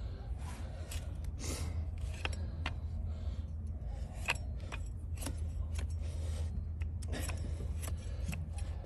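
Large flat hoof-trimming blade paring a donkey's hoof horn: a series of sharp, crisp cuts at irregular intervals, over a steady low rumble.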